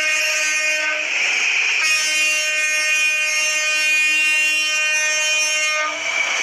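Toy train's electronic horn sound effect: one steady, many-toned blast that stops about a second in, a brief hiss, then a second long blast of about four seconds.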